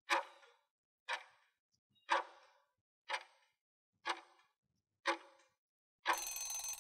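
Countdown-timer clock-tick sound effect, one sharp tick each second, six in a row. About six seconds in, the countdown runs out with a short hissing burst.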